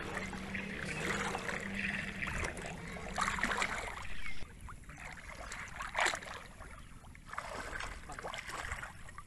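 Shallow muddy water splashing and sloshing as a man wades knee-deep and works his hands through the water, setting small fishing nets. The sound is irregular, louder in the first half, quieter after about four and a half seconds, with a sharper splash about six seconds in.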